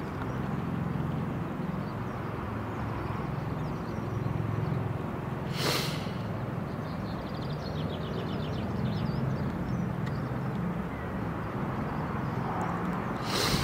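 Steady low outdoor rumble with a faint, rapid run of short high piping calls about halfway through, fitting oystercatchers calling. Two brief bursts of noise come a little before the middle and again near the end.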